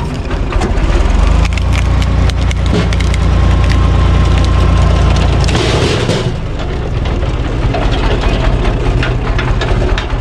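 Tractor-driven screw-cone log splitter boring into a log over the steady drone of the tractor, the wood cracking and splintering. About six seconds in there is a loud crashing burst and the deep drone eases off: the splitter's cone shaft snaps.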